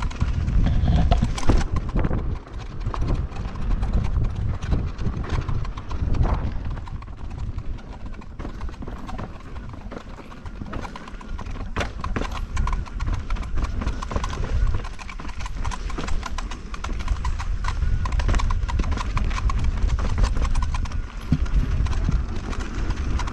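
KingSong S22 electric unicycle ridden down a rough dirt trail: wind buffeting the microphone over the tyre's rolling rumble, with a dense run of clicks and knocks as the wheel and its suspension take the bumps. It eases off for a few seconds in the middle, then builds again.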